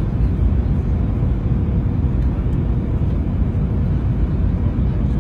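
Steady low rumble of an airliner's engines and rushing air heard inside the passenger cabin, even and unbroken throughout.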